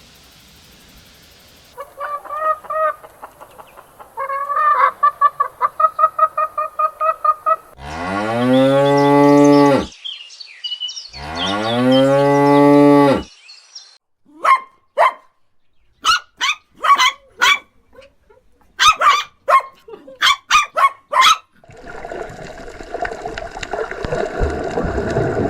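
A cow mooing twice, two long calls that fall in pitch, about eight and eleven seconds in. Before them comes a run of quick repeated animal calls, and after them a string of short sharp calls from other farm animals, fowl among them.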